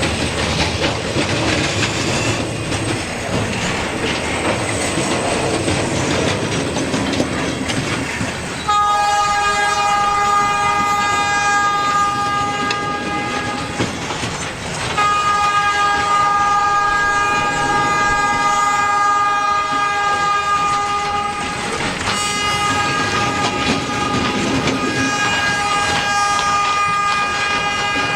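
Air horn of Escanaba & Lake Superior SD40 locomotive 503 sounding three long blasts over the noise of the freight train rolling by, the first starting about nine seconds in, after a stretch of train noise alone. The horn sounds a little sick.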